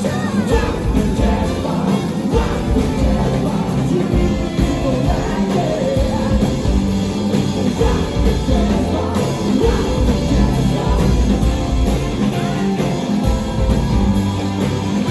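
Live rock band with electric guitars and a group of singers playing a song at full volume, heard from the crowd in front of the stage.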